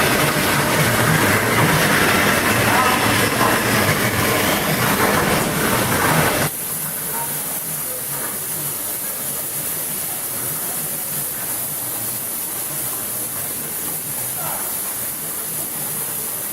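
Hypertherm HPR260XD plasma torch cutting steel on a CNC table, a loud, dense hiss that starts suddenly. About six seconds in it drops to a quieter, steady hiss with a faint high whine.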